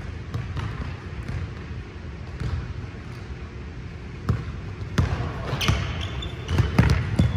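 Basketball dribbled on a hardwood gym floor, in irregular thuds that grow louder and come closer together near the end, with sneakers squeaking on the floor for a moment.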